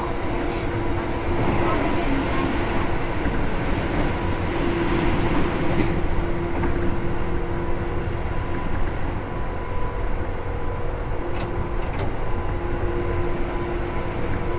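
Tobu 9000 series electric train running, heard from inside the car: a steady rumble of wheels and running gear with a steady electrical hum from the traction equipment that fades for a few seconds in the middle and then returns. Two short clicks come about three-quarters of the way in.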